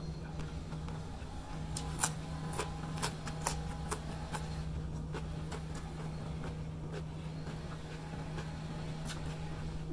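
Crisp crunching of raw cucumber being chewed, a run of short sharp crunches about two to four seconds in and one more near the end, over a steady low hum.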